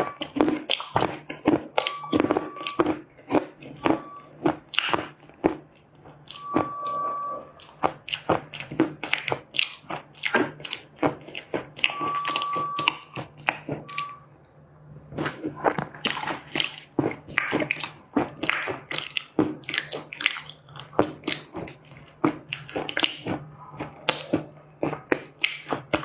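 A person biting and chewing dry loess clay close to the microphone: sharp crunches several times a second, with a short lull about fourteen seconds in.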